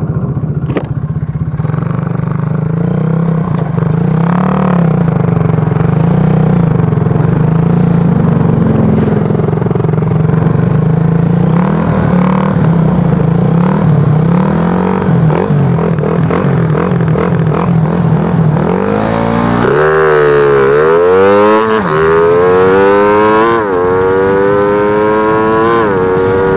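Stock Suzuki Raider R150's single-cylinder four-stroke engine running hard at speed under a rush of noise, its pitch wavering. About two-thirds of the way in it climbs in pitch in several runs, each cut by a short drop as it shifts up, on a full-throttle speed run.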